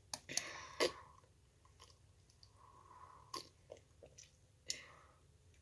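A person drinking from a drink can: a few faint gulps and swallows with sharp little clicks, in a cluster near the start and again later on.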